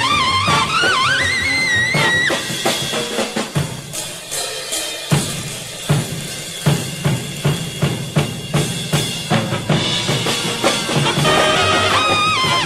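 Big-band jazz: a high trumpet line with bending, sliding notes ends about two seconds in. A drum kit break follows, with bass drum and snare hits in a steady beat of about three a second. Brass comes back in near the end.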